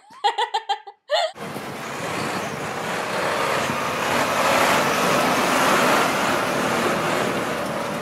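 Mack concrete mixer truck's diesel engine running close by with heavy road noise, a loud, dense, steady rush that starts abruptly about a second and a half in. Before it, a woman's voice is heard briefly.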